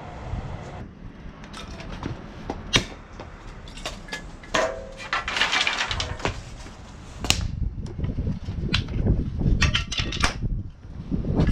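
Handling noise from unpacking a stainless steel fire pit: scattered knocks and clicks, with a rustle of packaging about halfway through.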